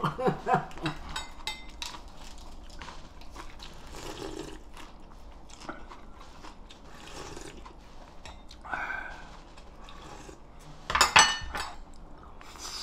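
Chewing a mouthful of crisp spring cabbage (bomdong) leaf wrapped around rice, soft crunching noises. About eleven seconds in, a metal spoon clinks sharply against a dish.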